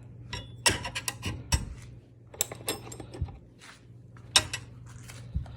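Small CNC-machined suspension sliders and rollers clinking and tapping together as they are handled, in scattered irregular knocks, over a faint steady low hum.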